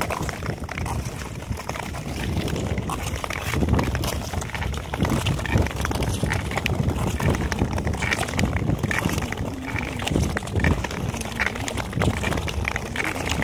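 Long-distance skate blades scraping and gliding over natural ice as several skaters stride along, with wind buffeting the microphone.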